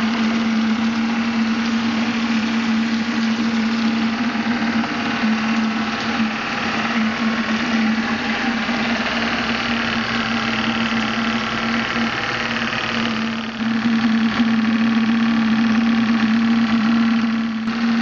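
Graupner 5000 model steam engine running steadily under load, driving a small pond pump: a steady hum with hiss over it, and water from the pump's hose gushing into a plastic bucket. The sound grows a little louder for the last few seconds.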